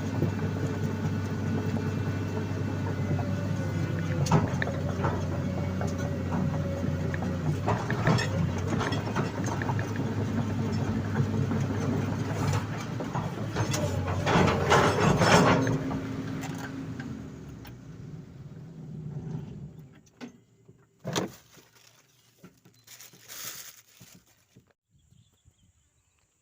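Hydraulic excavator's diesel engine running steadily, with repeated metallic clanks from the machine working, loudest a little past the middle. About two-thirds of the way through, the engine sound dies away over a few seconds, leaving near quiet broken by a few sharp clicks.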